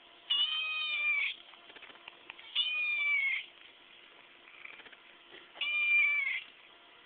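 Chocolate point Siamese kitten meowing three times, each call about a second long, with the pitch dipping slightly at the end of each.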